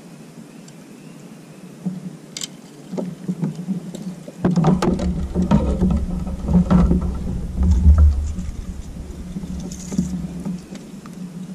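Knocks, bumps and low rumbling of a fishing kayak being shifted and handled, starting about four seconds in and loudest in the middle, with clatters over a faint steady hum.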